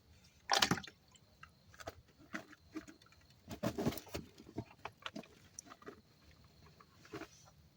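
Irregular knocks, clicks and rubbing handling noises close to the phone's microphone as the phone is handled in its holder; the loudest knock comes about half a second in, with a cluster of bumps near the middle.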